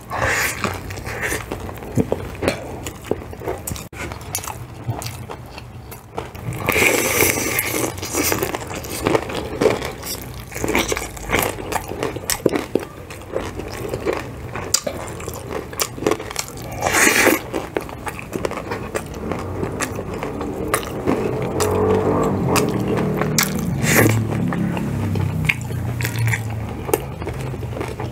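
Close-miked eating of crispy spicy fried chicken and rice by hand: crunchy bites, chewing and wet mouth sounds, with food being handled. Louder crunchy bites come about 7 seconds in and again about 17 seconds in.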